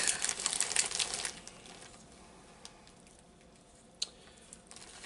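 Crinkly plastic candy bag rustling and crackling as fingers dig inside it, loudest for about the first second, then dying away to faint handling noise. One sharp click about four seconds in.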